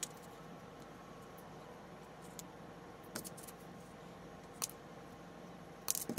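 Diagonal cutters snipping and handling the wire legs of axial diodes: a few sharp clicks, the loudest near the end, over a faint steady hum.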